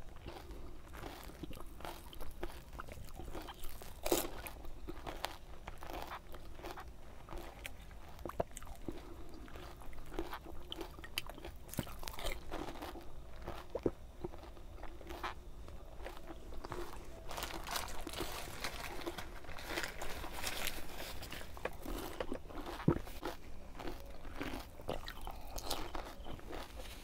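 Crisp pani puri shells crunching as they are bitten and chewed, one after another in quick succession, with many small irregular cracks and mouth sounds.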